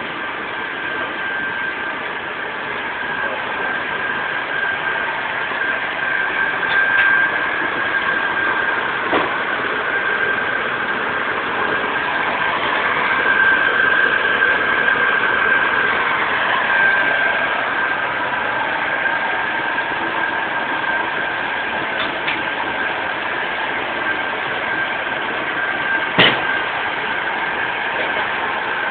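Semi-automatic shrink-wrap packaging machine running: a steady mechanical hum with a constant high whine, broken by a few sharp clicks, the loudest near the end.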